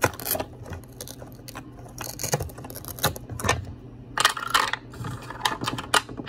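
Small wooden toy pizza toppings clicking and clattering as they are handled and dropped into a wooden sorting box, in quick irregular knocks with a little scraping.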